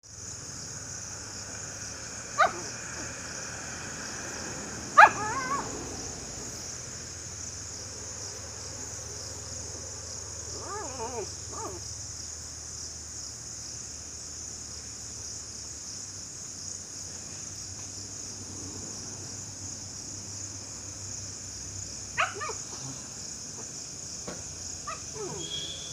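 Dog barking in short, sharp barks while playing: one about two seconds in, the loudest about five seconds in, softer yelps around eleven seconds, and a few more near the end.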